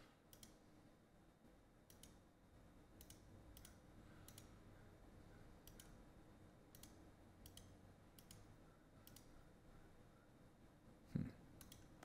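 Faint computer mouse clicks, about ten of them at irregular intervals roughly a second apart. A single low thump a little before the end is the loudest sound.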